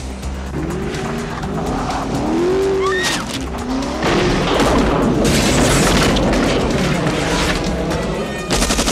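Aston Martin V8 sports car engine revving and tyres squealing as it slides on snow and ice, then a long loud rush of skidding noise from about four seconds in, with film score underneath. Rapid machine-gun fire starts just at the end.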